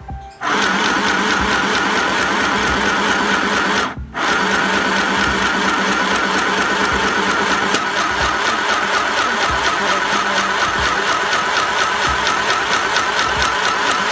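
Mini electric sewing machine running steadily as it stitches through fabric. It starts about half a second in and pauses briefly about four seconds in before running on.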